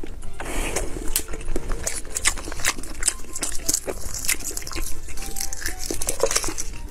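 Boiled eggshell being cracked and peeled by hand close to the microphone: a steady run of small sharp crackles and ticks, with some soft wet mouth sounds of chewing.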